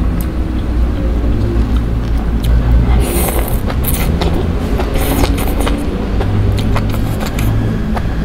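Close-miked slurping and chewing of spicy instant noodles, with two loud slurps about three and five seconds in and wet mouth clicks between them. A steady low rumble runs underneath.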